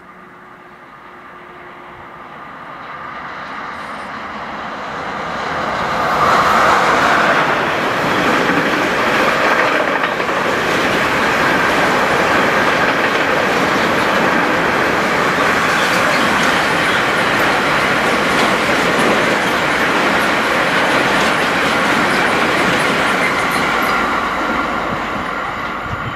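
DB Class 111 electric locomotive approaching and passing close by, growing louder until it goes past about six seconds in. Then a long train of empty double-deck car-transport wagons rolls past with steady wheel clatter over the rail joints, easing off near the end as the train draws away.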